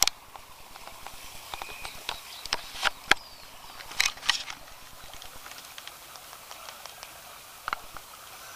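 Scattered sharp clicks and taps, the loudest about three seconds in: a cockatoo's beak knocking and biting at the wire cage bars and at the camera held against them.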